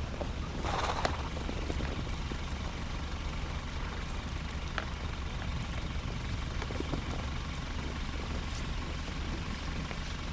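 A steady low engine hum, like a vehicle idling, with a short rush of noise about a second in and a few faint clicks.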